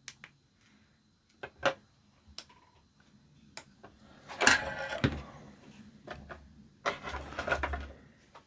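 Scattered sharp clicks and knocks of objects being handled, with two longer scraping, rustling stretches: one about four seconds in and one near the end.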